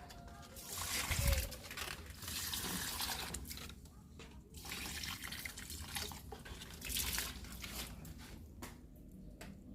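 Water poured out in uneven spells, splashing and dripping, as old catfish-tank water is used to water potted plants.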